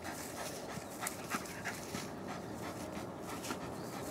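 German Shepherd panting hard in quick, rhythmic breaths while tugging on a stick clenched in its jaws. It is overheated and working at full effort, frothing at the mouth.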